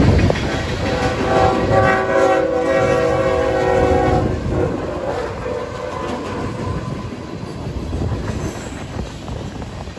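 Diesel locomotive air horn sounding one long blast of several tones at once, starting about a second in and stopping about four seconds in. Under it and after it, freight cars rumble and clack past and strong wind buffets the microphone.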